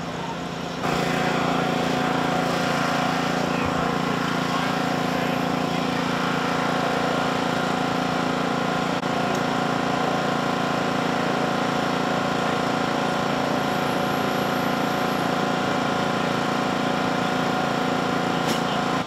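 An emergency vehicle's engine idling steadily. The drone comes in loud about a second in and holds an unchanging pitch throughout.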